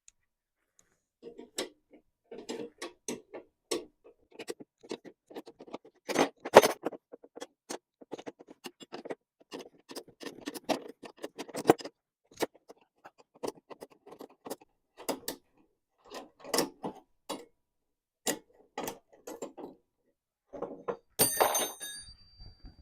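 Hand socket wrench ratcheting and metal tools clinking in irregular runs of sharp clicks while a mower wheel bolt is undone, with a louder rattle near the end.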